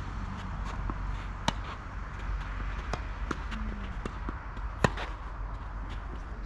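Tennis racket striking the ball twice, about three and a half seconds apart, the second hit being the louder, with light footsteps on the court in between.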